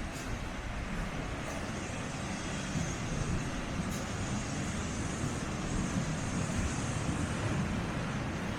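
Sea surf washing against shore rocks: a steady rush of noise with a low rumble underneath.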